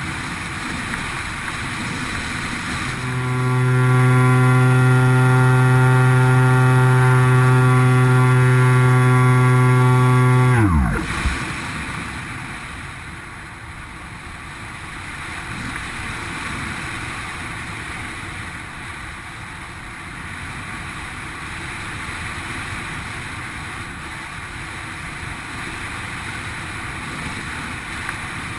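X8 flying wing's electric pusher motor and propeller: it spools up a few seconds in, holds a steady high-power tone for about eight seconds, then the throttle is cut and its pitch drops away fast. Around it, a steady rush of strong wind on the microphone.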